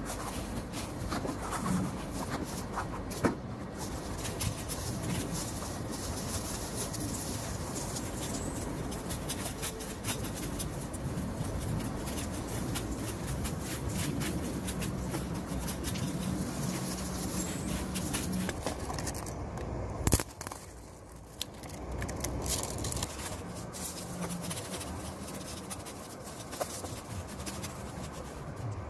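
Dry bamboo stalks and leaves rustling and crackling as they are pulled and cut by hand, with scattered small snaps and clicks, and one sharp knock about twenty seconds in.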